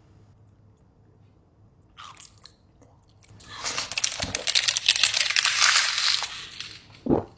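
Close-up biting and crunching of a frozen, icy food. A first bite comes about two seconds in, then loud, dense crunching for about three seconds, and a short low thump near the end.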